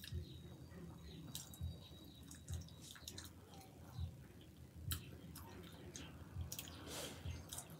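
Close-miked wet chewing with soft mouth clicks and lip smacks at irregular intervals, about one to two a second.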